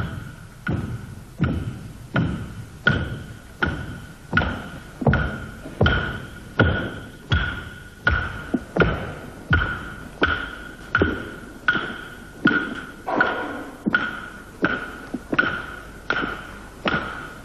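A steady processional beat on a struck percussion instrument, about three strokes every two seconds. Each stroke is a thud with a short ringing tone.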